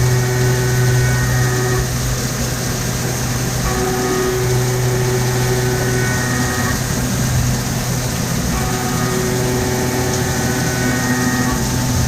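Milling machine running and cutting metal, a steady hum with higher cutting tones that come in and drop out in a repeating cycle about every four seconds as the cutter makes its passes.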